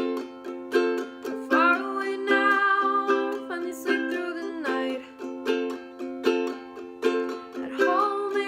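Ukulele strummed in steady chords, with a voice singing held, wavering notes over it, once through the middle and again near the end.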